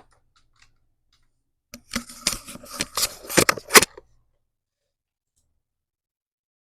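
Computer keyboard typing: a quick run of key presses starting about two seconds in and lasting about two seconds.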